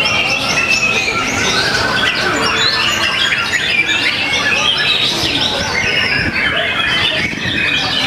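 Many caged white-rumped shamas (murai batu) singing at once in competition: a dense, unbroken tangle of overlapping whistles, rising and falling glides and chirps over steady background noise.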